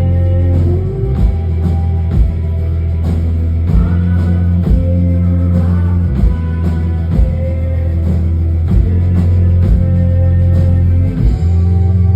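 Rock band playing live: heavy sustained bass, steady drum hits and guitar lines.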